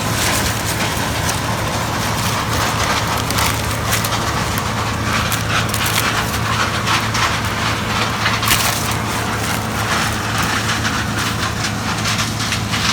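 Dry corn husks and leaves crackling and rustling as they are handled or brushed past, with irregular crisp snaps. A machine engine runs steadily underneath.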